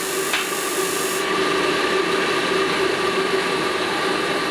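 Stripped-down Ideal Isar 24 gas boiler retrying ignition: a steady whirring hum, with a high hiss that stops about a second in.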